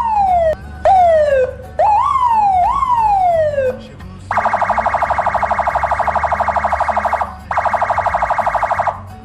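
Police-style electronic siren fitted to a car, sounding repeated wails that jump up quickly and slide down over about a second each. About four seconds in it switches to a rapid pulsing tone, which breaks off briefly and resumes, over a low steady hum.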